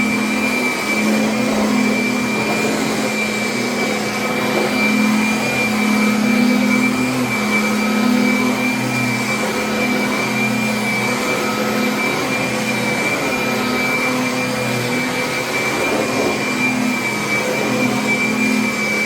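Kirby vacuum cleaner running steadily: a constant high whine over a lower motor hum that wavers slightly in strength.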